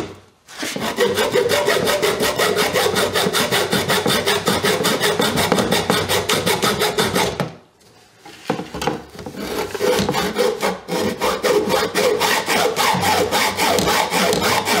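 Hacksaw cutting through a small metal screw to shorten it, in quick, steady back-and-forth strokes. It runs in two spells with a brief pause about eight seconds in.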